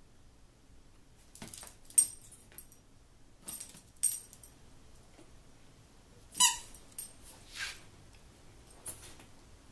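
Red rubber fish-shaped squeak toy squeaking again and again at uneven intervals as a dog bites and chews it; the loudest squeak comes about six and a half seconds in.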